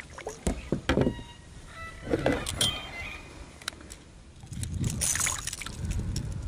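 Small peacock bass being landed beside a plastic kayak with a lip-grip: sharp clicks and knocks of the grip and gear against the hull in the first second, then a brief splash as the fish is lifted out of the water about five seconds in, over a low rumble of handling on the microphone.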